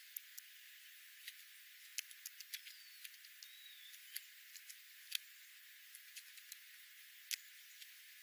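Faint steady hiss with scattered sharp clicks and ticks, and two faint short bird chirps about three seconds in.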